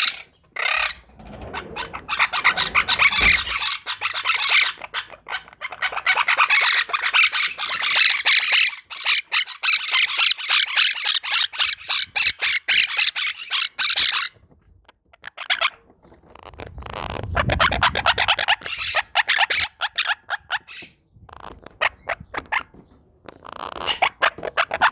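Monk parakeets chattering and squawking in rapid, harsh runs. The calling is steady for about twelve seconds, breaks off briefly, then comes back in shorter bursts.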